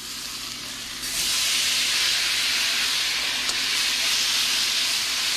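Chunks of marinated mahi-mahi sizzling and frying in a pan of hot olive oil. The sizzle jumps louder about a second in, when more fish goes into the pan, then holds steady.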